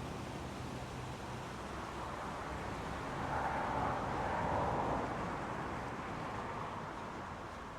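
Street traffic noise, with a vehicle passing that grows louder a few seconds in and then fades away.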